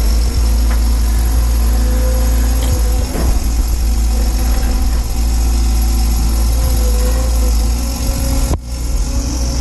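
Doosan DX180 excavator's diesel engine running steadily with a constant low hum, the machine at work backfilling. The sound drops out for an instant about a second before the end.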